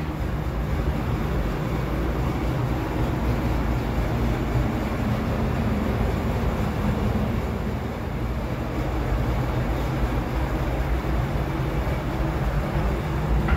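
Steady low mechanical rumble with a faint hum, unbroken and even in level, like machinery or fans running.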